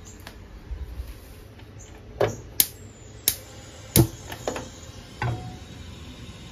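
A gas stove being lit and a frying pan handled: about six sharp clicks and knocks in quick succession, the loudest about four seconds in.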